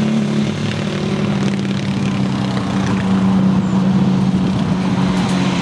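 A 450cc single-cylinder quad bike engine running steadily, holding an even pitch.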